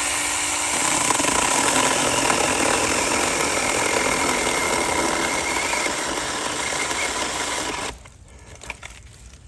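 Saker mini cordless electric chainsaw cutting wood: a brief motor whine, then the noisy sound of the chain through the wood for about eight seconds before it stops abruptly.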